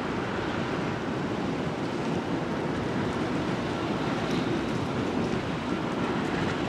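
Alco RS32 diesel locomotive's V12 engine running steadily as it creeps along at low speed, mixed with wind noise on the microphone.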